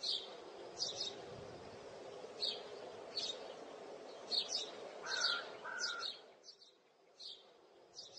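Small birds chirping: short high chirps about once a second, with two lower notes about five seconds in, over a steady low background hum that drops away near the end.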